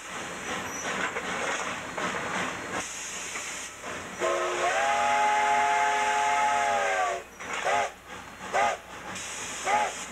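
Steam whistle of a K-36 narrow-gauge steam locomotive, heard from inside the cab: about four seconds in, one long blast slides up in pitch as it opens and holds for about three seconds, followed by three short toots. Under it the locomotive's steady hiss of steam and running noise continues.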